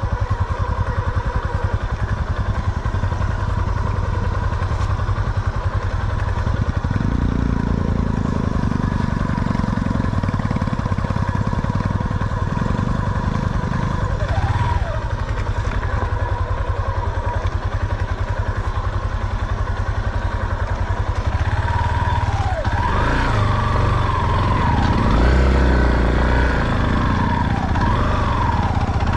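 Motorcycle engine running steadily under way. Its low note grows heavier for several seconds about a quarter of the way in, and it rises and falls near the end.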